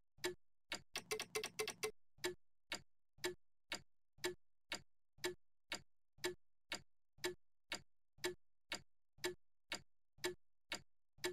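Regular ticking, about two ticks a second, with a quick flurry of faster ticks about a second in.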